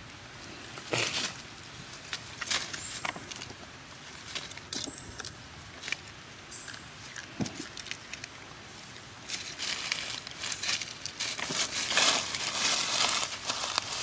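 Dry leaves crackling and rustling as a young long-tailed macaque handles and chews a dry leaf, with scattered sharp crackles at first and denser crackling over the last few seconds.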